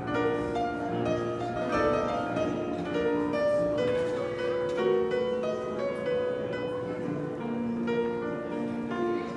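Piano played live: a continuous flowing line of melody notes over sustained chords.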